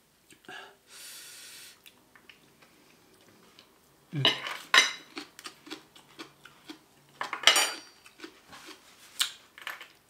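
Metal fork and spoon clinking and scraping against a plate during a meal, with two clusters of louder clatter about four seconds in and again near seven and a half seconds, between lighter scattered clicks.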